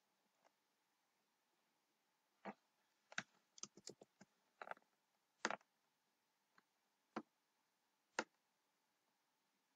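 Computer keyboard keystrokes and mouse clicks: about a dozen separate, sharp clicks scattered over several seconds, with near silence between them.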